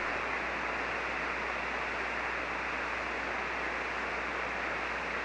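Steady hiss of 40-metre band noise from a ham transceiver's speaker on single-sideband, with no station coming through. The hiss is cut off sharply at the top of the voice range, the shape of the receiver's SSB filter, with a faint low hum underneath.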